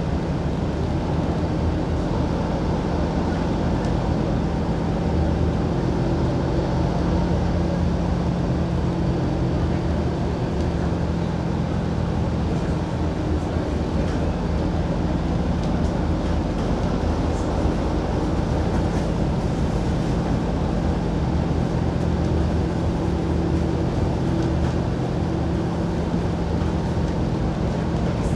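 City bus driving, its engine hum and road noise heard from inside the passenger cabin as a steady drone.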